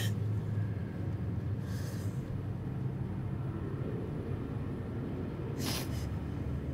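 Steady low rumble of distant city traffic, with two brief airy rustling sounds, one about two seconds in and another near the end.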